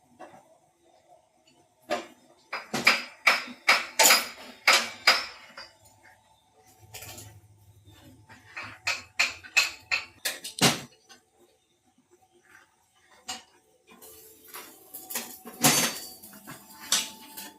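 Irregular sharp metallic clanks and knocks of metal parts and tools striking one another, in quick runs about two seconds in, around ten seconds in, and again near the end.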